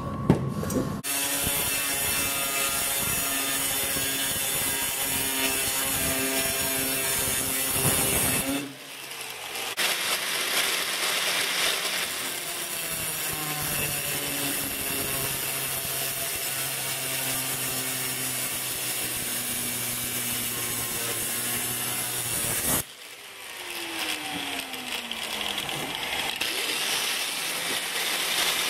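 Angle grinder with a cut-off wheel cutting through steel flat bar, a steady high whine with a harsh grinding rasp, while an intake flange is cut out of the bar. The cutting stops briefly about a third of the way in and again near the end, where the motor's whine falls away before cutting resumes.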